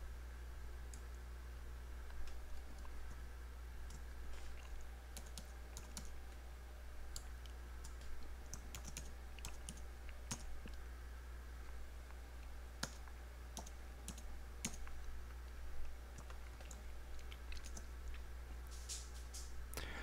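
Faint, slow, irregular keystrokes on a computer keyboard, typing a password, over a steady low hum.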